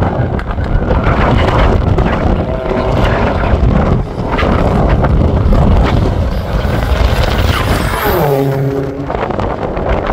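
Vauxhall Astra hatchback's engine driven hard around the circuit, coming close and then accelerating out of a corner, its note rising clearly about eight seconds in. Heavy wind buffets the microphone throughout.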